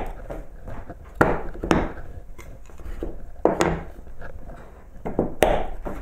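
Wooden boards knocking on a workbench and a horizontal toggle clamp clacking as its handle is worked to clamp a board down. A handful of sharp knocks, the sharpest about five and a half seconds in.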